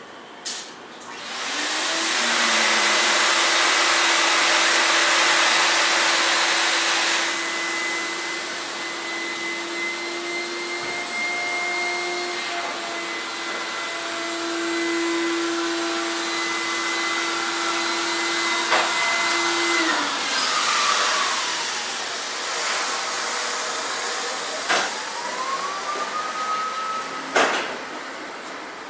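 A machine's motor running with a steady hiss and whine, which winds down and stops about twenty seconds in. A few seconds later a second whine rises, and a few sharp knocks come near the end.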